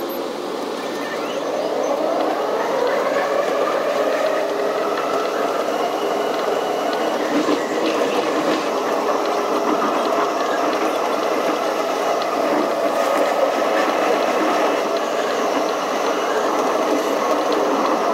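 Alstom X'Trapolis 100 electric train heard from inside a carriage as it pulls away and gathers speed. A motor whine rises in pitch over the first couple of seconds and then holds steady over the running noise.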